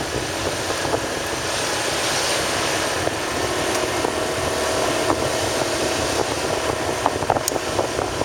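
Steady road and engine noise of a vehicle travelling at night on a rough road, with passing traffic. A faint steady drone joins about three and a half seconds in, and a few short knocks come near the end.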